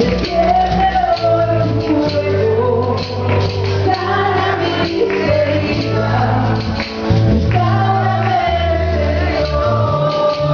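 Live gospel band music with singing: a sung melody over a steady bass line and rhythmic percussion, likely including a tambourine.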